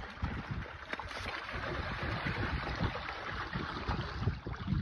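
Water splashing and churning as a crowd of live carp thrash in a shallow netted holding pen while they are released into the pond. Wind buffets the microphone in irregular low gusts.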